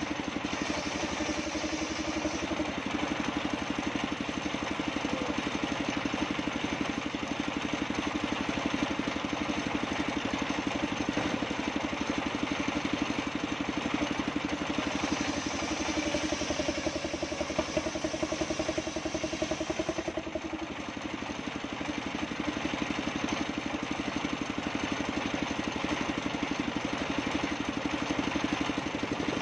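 Engine-driven circular table saw running steadily with a fast even beat, its blade ripping lengthwise through waru (sea hibiscus) planks and slabs. A high whine rises over the engine while the blade is in the wood, strongest about halfway through and again near the end.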